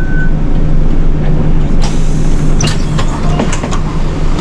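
Nishitetsu city bus running with a steady low engine hum and road noise. About two seconds in, a rush of hiss with several sharp clicks and squeaks joins it for a couple of seconds.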